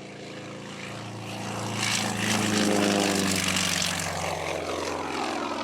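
Propeller airplane flying past: its engine drone swells to its loudest about halfway through, then fades away, dropping slightly in pitch.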